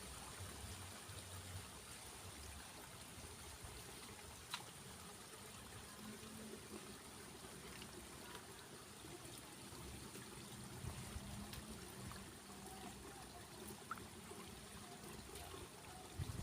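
Faint, steady trickle of water, with a single small tick about four and a half seconds in.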